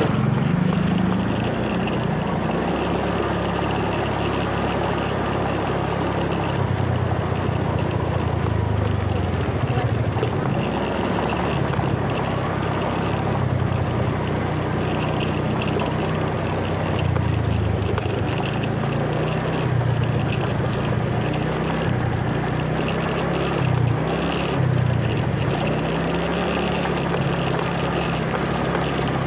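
Motorcycle engine running as it is ridden, its note rising and falling with the throttle, over steady wind and road noise.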